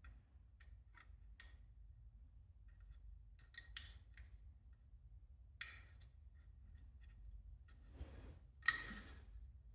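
Scattered small clicks and snips of hand work, with a short scraping rustle about eight seconds in.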